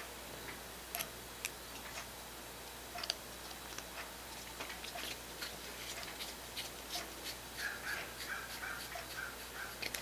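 Small hex driver turning tiny screws into the plastic bearing cap of an RC scale-truck axle: faint, scattered clicks and ticks of metal on plastic, with a faint high squeak in the last couple of seconds.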